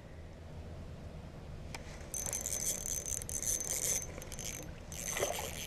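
Fishing reel whirring with a thin high whine, in a spell of about two seconds and then a shorter one near the end.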